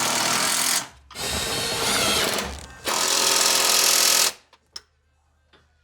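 Impact wrench running in three bursts, the last stopping sharply a bit over four seconds in, followed by a few faint clicks.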